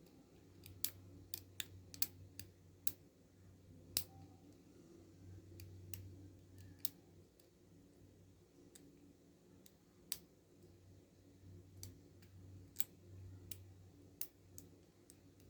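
Hook pick clicking against the pins inside a Paclock 90A padlock under tension while searching for the binding pin: scattered, irregular sharp clicks.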